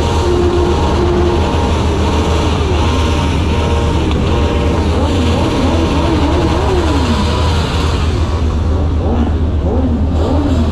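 Car engines revving, their pitch rising and falling again and again over a steady low rumble.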